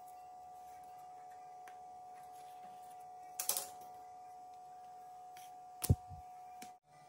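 Kitchen work sounds over a steady faint hum: a brief clatter of light taps about halfway through and one sharp knock near the end.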